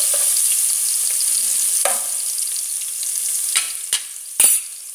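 Chopped garlic sizzling in hot soybean oil in a metal pan as it browns, stirred with a metal spoon that clicks against the pan about four times, most loudly near the end. The sizzle gradually dies down.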